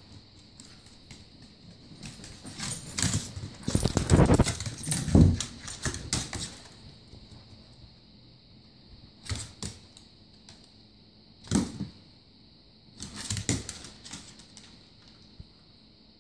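Dogs playing on a hardwood floor: claws clicking and scrabbling, with scuffling in irregular bursts. The loudest stretch comes a few seconds in, and there are shorter bursts later.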